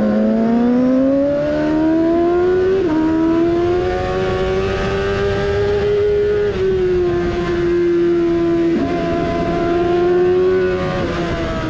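Yamaha R6 600 cc inline-four sport bike engine with a GPR Furore exhaust, held at high revs on track. Its pitch climbs under acceleration and drops sharply at quick gear shifts, about three seconds and six and a half seconds in. It dips briefly near nine seconds and falls away near the end.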